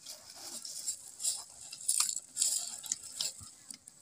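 Meal eaten by hand from plates and bowls: irregular crunching and rustling bursts with a few light clicks of dishes, tapering off near the end.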